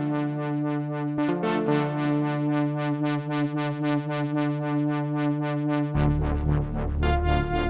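Sequential OB-6 polyphonic analog synthesizer playing a patch: a sustained chord with a quick repeating pulse of notes in the upper range. About six seconds in, a deep bass comes in and the chord changes.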